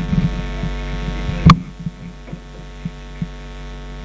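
Steady electrical mains hum, with one loud sharp click about a second and a half in and a few fainter knocks before and after it.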